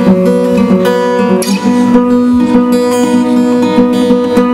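Acoustic guitar strummed in a steady rhythm, about two strums a second, with the chords ringing on; the chord changes about one and a half seconds in.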